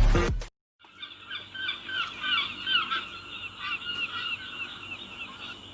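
Music cuts off just after the start. After a moment of silence, a flock of birds calls from about a second in: many short, overlapping calls that each curve up and down in pitch.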